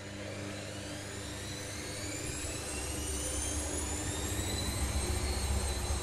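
Candy GO 510 GrandO washing machine speeding up into a spin: the drum motor's whine rises in pitch and levels off about five seconds in, over a low drum rumble that grows louder.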